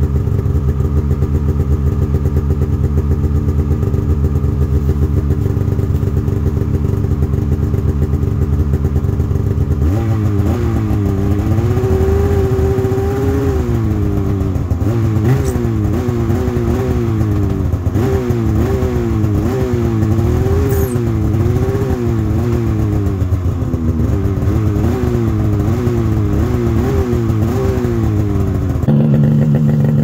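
Polaris Patriot Boost turbocharged two-stroke snowmobile engine through its factory muffler, warmed up and idling steadily, then revved: a few seconds held at higher revs, followed by a long series of quick throttle blips about once a second. Near the end it settles back to a steady idle.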